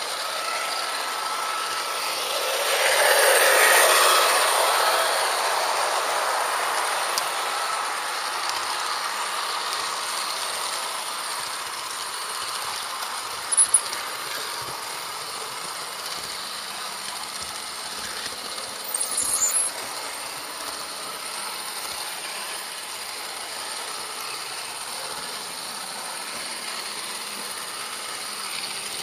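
HO-scale model train running along the track, heard from a camera mounted on it: a steady mechanical rattle and hum from the motor and wheels. It swells louder for a few seconds near the start, and there are two short sharp clatters later on.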